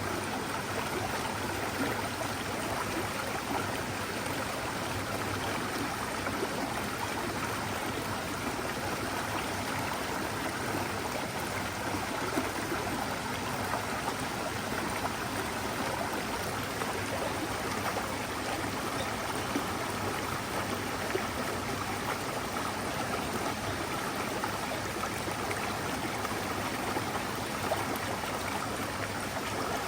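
Mountain stream flowing over rocks: a steady, even rush of running water that does not change.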